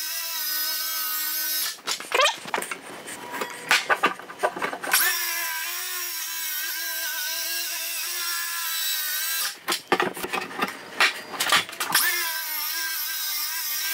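DeWalt cordless circular saw cutting through plywood subfloor: a steady, high-pitched motor whine, broken about two seconds in and again near ten seconds by stretches of rougher, uneven noise.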